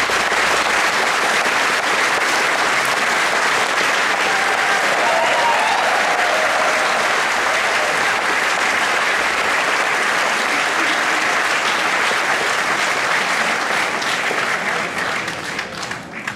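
Audience applauding steadily after the music ends, dying away over the last couple of seconds.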